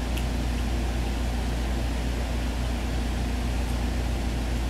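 Steady low hum with an even hiss over it: constant background room noise.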